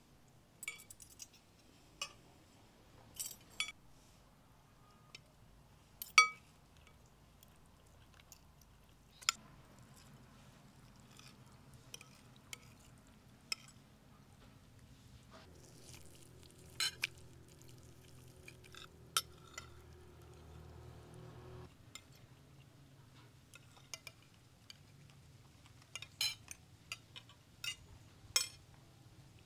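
Metal serving spoons and a ladle clinking against ceramic plates and bowls while food is dished out: scattered single clinks, the loudest about six seconds in. A faint low hum comes in about ten seconds in and stops after about twenty-two seconds.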